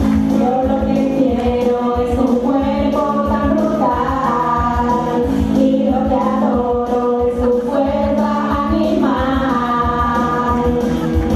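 A group of voices singing a song together over a backing track with a steady beat.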